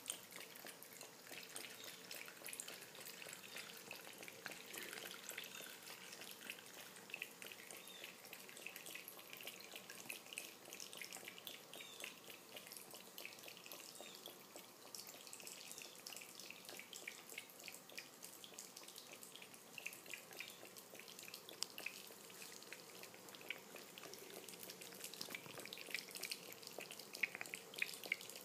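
Faint thin stream of tap water trickling into a ceramic bathroom sink and spattering off a cat's head, with many small wet ticks as the cat laps from the stream.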